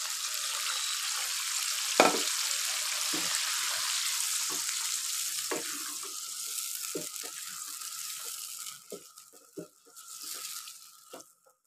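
Hot ghee sizzling as cold yogurt hits the fried mutton in the karahi, with a wooden spatula knocking against the pan as it is stirred in. The sizzle dies down over the last few seconds.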